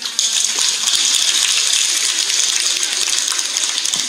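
An audience applauding: many people clapping together, loud and steady, starting just after the start.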